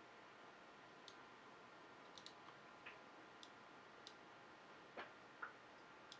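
Logitech G703 gaming mouse buttons being clicked: faint, sharp clicks at irregular intervals, about eight in all, with a quick pair about two seconds in. The clicking tests a left button with a problem.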